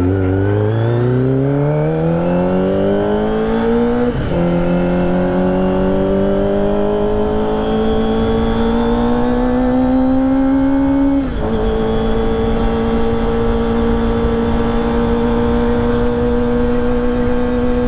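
Kawasaki ZX-25R 250 cc inline-four running through a ProSpeed Shark high-mount slip-on exhaust under acceleration. The revs climb, drop with an upshift about 4 seconds in, climb again, and drop with a second upshift about 11 seconds in before it holds a steady cruise.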